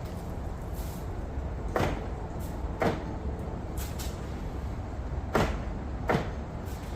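A newly installed power door lock actuator in a 2019 Chevy Silverado rear door, tested by cycling the lock. It makes four sharp clunks in two pairs, about a second apart and then closer together.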